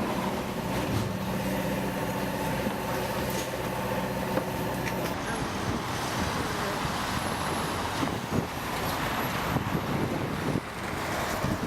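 City street traffic: a steady wash of vehicle noise, with the steady hum of a large vehicle's engine through the first few seconds.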